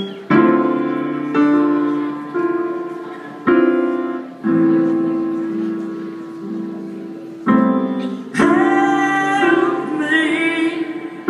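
Solo piano played live: slow chords struck about once a second, each left to ring and fade, with one chord held longer in the middle.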